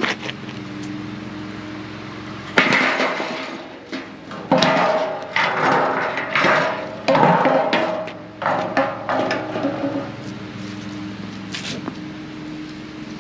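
A steady low engine hum, with loud irregular clattering and handling noises about a third of the way in, lasting for several seconds.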